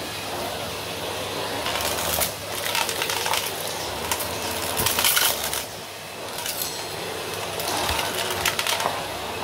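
Numatic Henry Extra cylinder vacuum cleaner running steadily as its floor head passes over a shag rug, with several bursts of crackling rattle as scattered debris is sucked up the tube, loudest around five seconds in.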